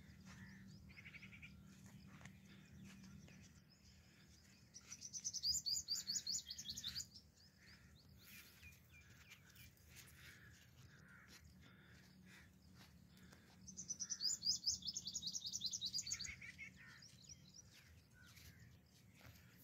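A songbird singing two rapid runs of high, quickly repeated notes, each about two to three seconds long: one about five seconds in and another about fourteen seconds in. Fainter chirps fall between them.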